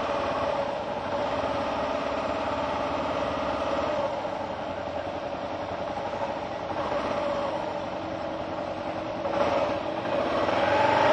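Motorcycle engines idling and running at low speed, a steady drone, with an engine note that rises and falls briefly near the end.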